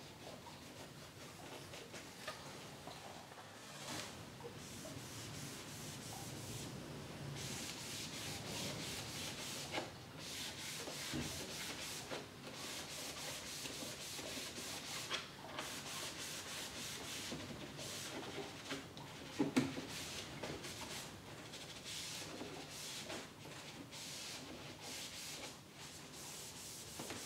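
Foam applicator pad rubbed in quick repeated strokes along the ribbed plastic slats of a car's front grille, a steady scratchy rubbing. A brief louder knock comes about two-thirds of the way through.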